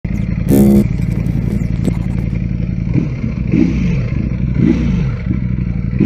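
Ducati Panigale V4S's 1103 cc V4 engine running at low speed, its pitch rising and falling twice as the throttle is blipped. A brief loud electronic buzz sounds about half a second in.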